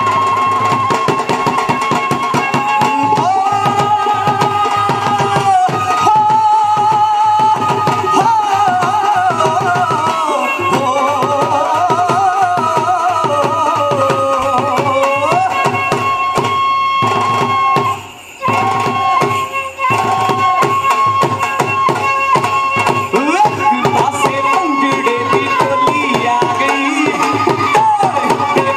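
Bhangra folk music with a dense, fast drum beat under a wavering melody line and a held high tone. The sound drops out briefly about eighteen seconds in.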